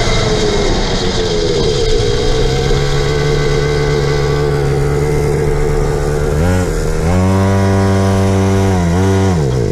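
Small engine of a Chinese minibike running under way; the revs dip about six seconds in, rise and hold, then the pitch falls steeply and the engine cuts out near the end. This is the bike dying again, the recurring cut-out its owner takes for fuel not getting through, as if something were blocked.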